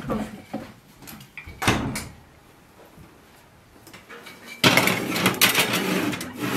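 A metal baking tray being slid into an oven along the oven's rails: a loud, rattling metal scrape that starts about two-thirds of the way in. Earlier there is a single clunk with a short ring.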